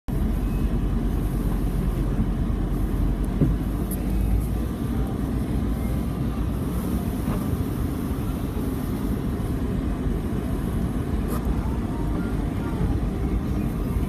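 Steady low rumble of an Isuzu VehiCROSS's engine and tyres on a snowy road, heard from inside the cabin.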